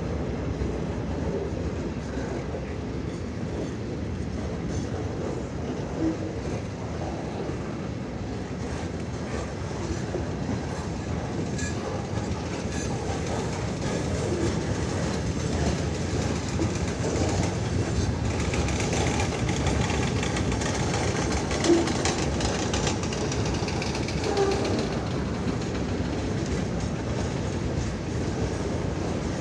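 Railroad cars of a CN train rolling steadily past, with wheels rumbling on the rails and clickety-clack. A few short clanks come through, the sharpest about two-thirds of the way through.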